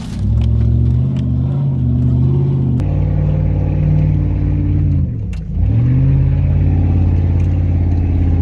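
V8 engine of an off-road SUV revving hard under load in soft sand. The revs sag briefly about five seconds in, then climb back up and hold high.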